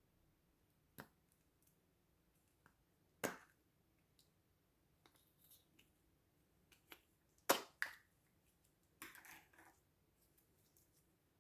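Slime being pressed and pulled by hand, giving scattered sharp pops and clicks a few seconds apart, with a loud pair about two-thirds of the way through and a short crackly run near the end.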